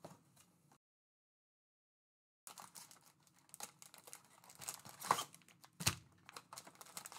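Cardboard trading-card hobby box being opened and its foil-wrapped packs pulled out and stacked: crinkling and scraping, with a couple of sharper taps about five and six seconds in. Silent for the first two seconds or so.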